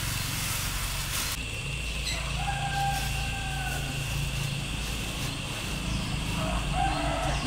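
Plastic bag rustling for about the first second and a half, then a rooster crowing about two and a half seconds in, with a weaker call near the end, over a steady low hum.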